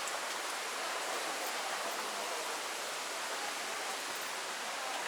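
Waterfall water rushing, an even, unbroken hiss.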